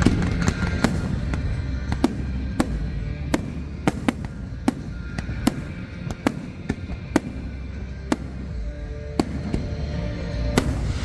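Fireworks going off in quick, irregular succession, sharp pops and cracks a couple to a few per second over a low rumble, with music playing underneath.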